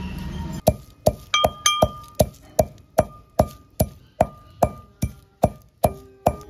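Iron mortar and pestle (hamandista) pounding whole spices for grinding: a steady run of sharp metallic clinks, about two to three a second, each with a short ring, starting a little under a second in.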